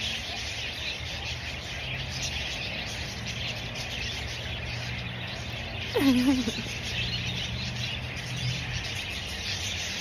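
Many budgerigars chattering and chirping together in an aviary, a steady, busy high twitter. About six seconds in, one short, louder sound falls in pitch like a voice.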